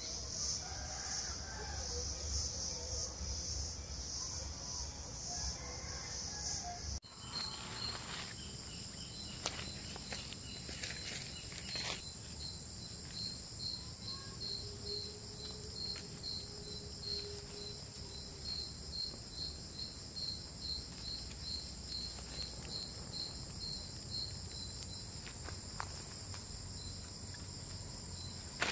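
Crickets and other insects calling in tropical forest: first a pulsing high trill, then, after an abrupt change about seven seconds in, a steady high drone with a chirp about twice a second. A few short cracks come soon after the change, from the campfire being tended.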